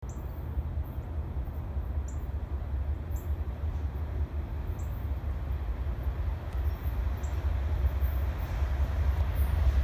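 Low rumble of an approaching CSX GE Dash 8 diesel locomotive leading a freight train, growing slowly louder. A few faint short high chirps sound over it.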